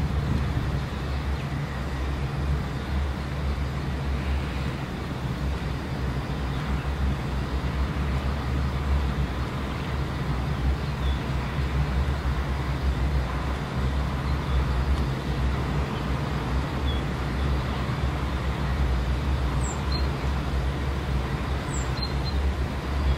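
Steady outdoor background rumble, heavy in the low end, of the kind left by traffic noise or wind, with a few faint short high chirps, two of them near the end.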